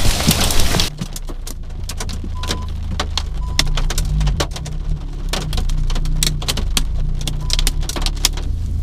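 Loud rain hiss that cuts off about a second in. Then, from inside a car's cabin, many scattered raindrops tick on the roof and glass over a low steady hum.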